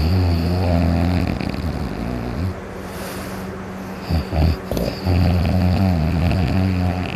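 Loud snoring, like a buzz saw: two long, low snores, with a short snort between them about four seconds in.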